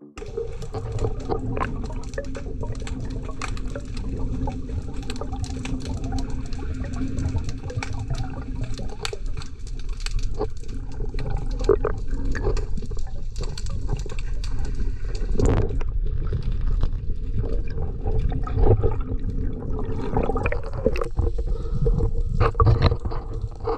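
Water heard by an underwater camera: a muffled, steady rushing rumble with many short clicks and crackles scattered through it.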